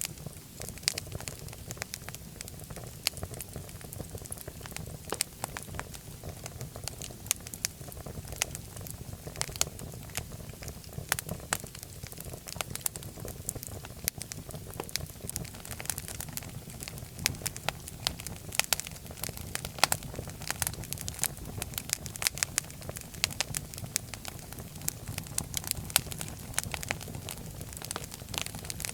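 Wood fire crackling and popping steadily, with many sharp snaps over a low rumble of flames.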